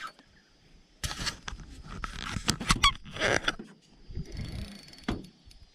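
Spinning reel and rod handled while fighting a hooked fish: a cluster of clicks and rattles about a second in, lasting two or three seconds with a short wavering buzz in the middle, then one more click.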